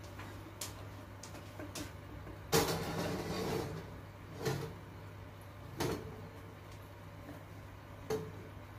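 A clay pot being set into an oven onto its wire rack. There is a loud clatter about two and a half seconds in, then three lighter knocks, over a steady low hum.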